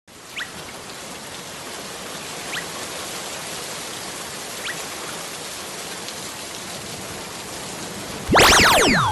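Steady rain-like hiss with a faint short blip about every two seconds. Near the end a loud whistling sound effect cuts in and sweeps steeply down in pitch.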